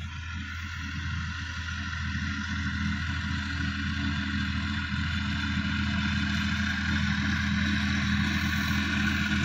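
Sonalika DI-50 RX Supreme tractor's diesel engine running steadily while pulling a tillage implement across a field. It grows gradually louder as the tractor comes closer.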